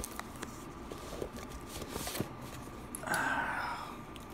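Faint handling noises: scattered small clicks and knocks, with a short rustle about three seconds in.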